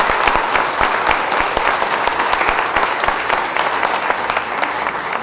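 A crowd applauding, many hands clapping at once in a dense, steady patter.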